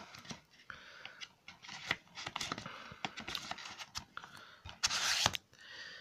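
Hands handling a DVD case: a run of light plastic clicks and rustles, with a louder scraping rustle about five seconds in.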